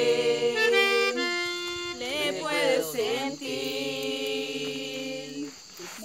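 A small group singing a Spanish worship song with guitar accompaniment, holding long sustained notes between short sung phrases.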